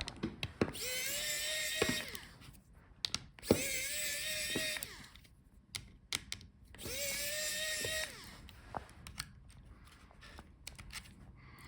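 Small electric screwdriver backing out tiny screws: three short runs of its motor, each spinning up and holding a steady whine for about a second. Light clicks and taps come between the runs.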